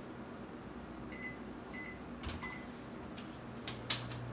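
GE over-the-range microwave oven being set: two short keypad beeps, then about three and a half seconds in it starts up with a few clicks and a steady low hum as it begins heating.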